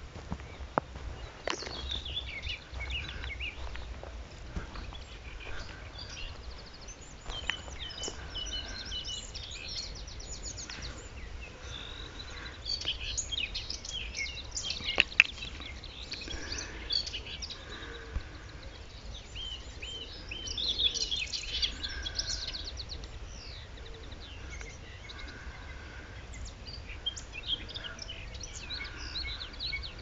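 Common whitethroat singing its harsh, scratchy jumble of notes in short bursts, among other small birds singing.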